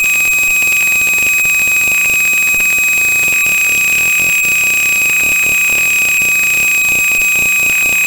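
Alarm buzzer sounding one continuous high-pitched tone: the burglar alarm has been tripped by its door switch and keeps sounding until the disarm code is entered.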